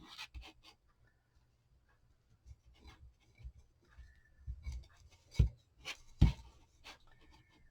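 Paper sticker sheet being handled: light scratching and rustling as letters are cut and peeled, with two sharp taps a little over a second from the end.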